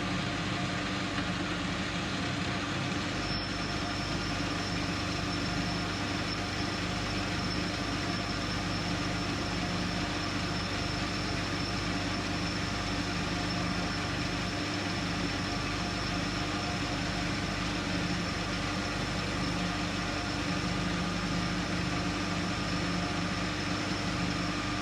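Metal lathe running steadily, its motor and gears humming. A thin high whine joins about three seconds in and holds steady.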